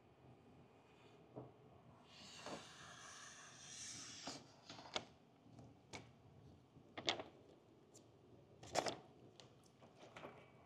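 A knife blade in a plastic holder glides along the glass edge, slicing through two layers of window tint film. It makes a faint hiss lasting about two seconds, followed by a scatter of light clicks and film crinkles.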